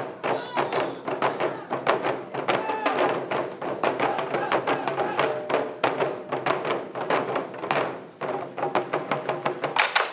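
Ensemble of taiko drums, barrel-bodied drums beaten with sticks, played in a fast, driving rhythm of many strikes a second.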